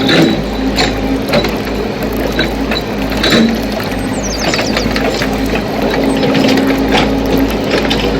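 Scale RC excavator at work: a steady motor whine with irregular ratcheting clicks and knocks from its gearing and metal parts.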